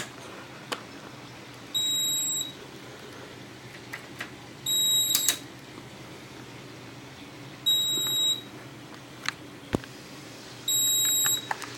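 Fire alarm control panel's piezo trouble sounder beeping, four high beeps about three seconds apart. The panel is stuck in trouble mode, which the owner thinks may be caused by a dead backup battery.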